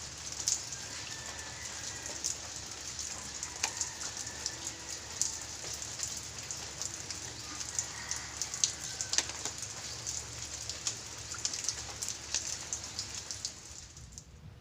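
Steady rain falling, an even hiss with many sharp drop impacts ticking through it. Near the end the sound drops off and turns quieter.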